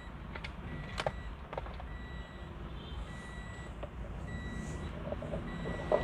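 A Toyota Vios's warning chime beeping in a steady series, one short high tone a little over once a second. A few sharp clicks come in the first couple of seconds as the steering-wheel parts are handled.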